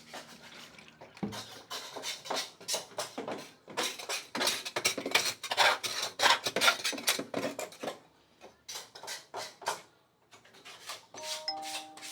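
Metal parts and tools clinking and knocking in quick, irregular succession while a washing machine's drum support is worked on, with a short metallic ring near the end.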